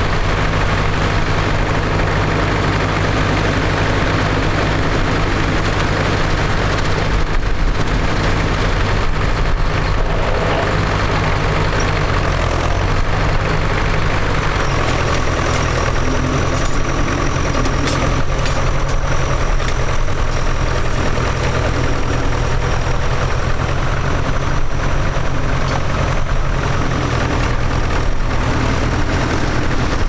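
Vintage grey Ferguson tractor engine running steadily, first ticking over, then working as it pulls a two-furrow mounted plough through the ground. The engine note shifts about halfway through.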